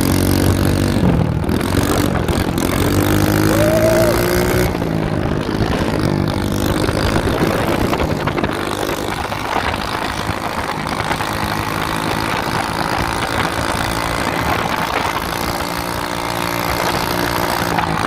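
Mini bike's small engine running loud under way. Its pitch drops in the first second, climbs for a couple of seconds as it speeds up, then holds steady at cruising speed.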